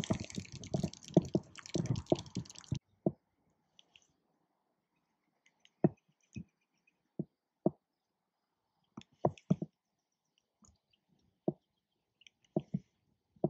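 Close handling noise from a baitcasting rod and reel: rustling and crackling for the first few seconds, then about a dozen scattered sharp knocks and taps spaced irregularly.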